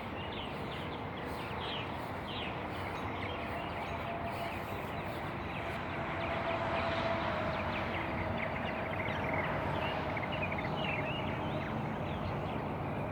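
Purple martins calling around their nest gourds: many short, quick chirps and chatters scattered throughout, over a steady outdoor background hiss.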